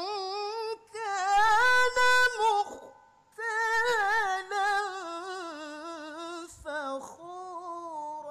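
A male qari's voice reciting the Qur'an in melodic tilawah style. He sings long held, ornamented phrases in a high register with wavering turns, breaking off briefly about one and three seconds in.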